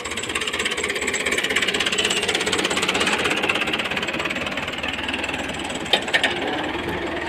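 Farm tractor's diesel engine running steadily close by, with a fast, even beat, as it pulls an implement through the field. Two sharp knocks sound about six seconds in.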